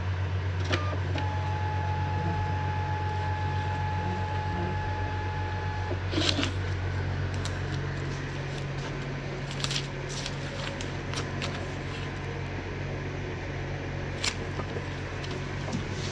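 Steady low machine hum of workshop equipment, with a thin steady high tone for the first few seconds that cuts off about six seconds in, then scattered sharp clicks and taps.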